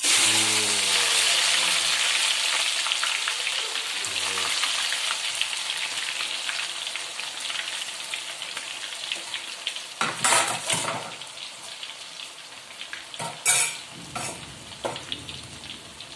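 Raw breadfruit slices hit hot oil in a wok and start a sudden loud deep-frying sizzle, which slowly dies down as the slices fry. A couple of brief louder surges come around ten and thirteen seconds in.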